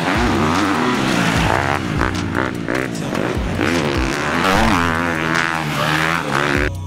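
Motocross dirt bike engine revving hard, its pitch climbing and falling again and again with throttle and gear changes as the bike is ridden round the track.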